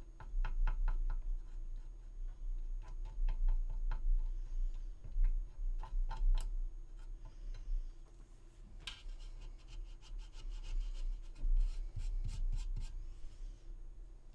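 Small hand tool scraping and tapping against a resin model kit as white filler is pressed and smoothed into a seam: irregular runs of quick clicks with rubbing, and a longer, harsher scrape about nine seconds in. A low steady hum sits underneath.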